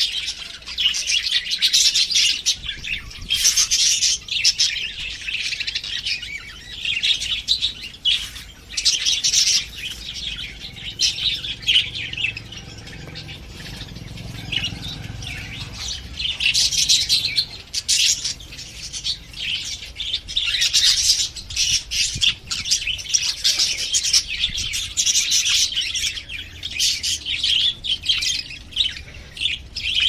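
Many budgerigars chattering and chirping at once, a dense, rapid warbling with squawks mixed in, easing off briefly about halfway before picking up again.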